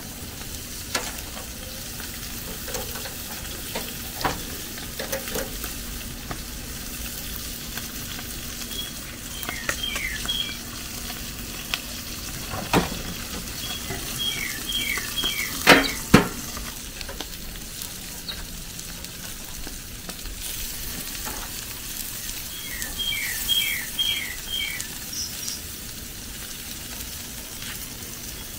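Carp sizzling steadily as it fries in hot oil, with a few sharp knocks, the loudest about two-thirds of the way in. A bird chirps a quick run of short notes three times.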